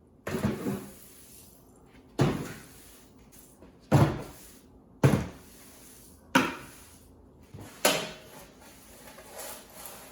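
A series of about six sharp knocks and bangs a second or so apart, as things are picked up and set or dropped down while clearing up scrap.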